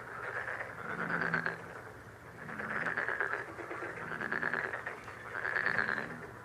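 Frogs croaking: about five rasping, pulsed calls, each lasting under a second, repeating over a steady frog chorus.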